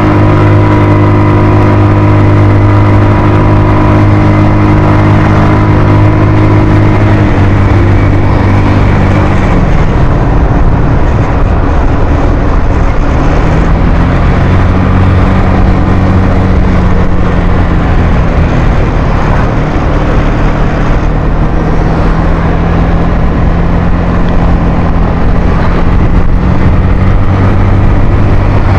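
Suzuki Skydrive scooter's single-cylinder engine running under throttle as it climbs a hill. About seven seconds in the engine note drops. From about thirteen seconds it steadies again at a slightly lower pitch.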